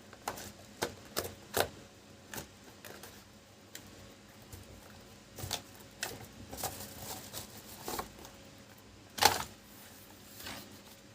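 A keyboard's cardboard box being opened and the keyboard handled out of it: scattered clicks, taps and rustles of cardboard and plastic, the loudest a single knock about nine seconds in.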